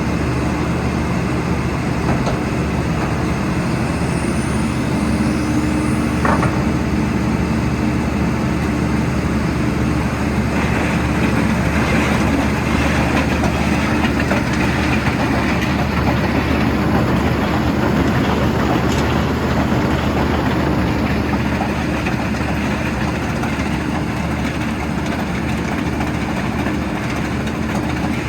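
Vögele Super 1803-3i asphalt paver's diesel engine running steadily.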